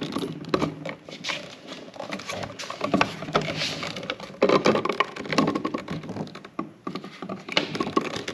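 Cover of a 50 amp generator inlet box being pushed and worked shut over stiff 6-gauge wire: irregular clicks, knocks and scraping of the housing as it is forced into place.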